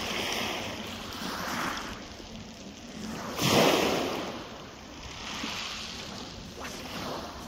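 Sea waves washing onto the shore in repeated rushing swells, with one larger wave breaking about halfway through, the loudest moment.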